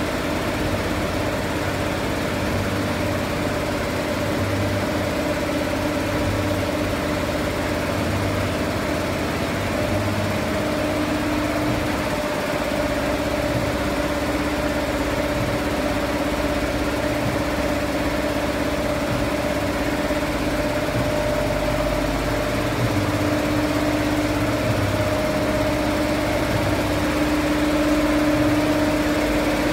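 High-speed multi-needle quilting machine running continuously, a steady mechanical hum with a constant pitch.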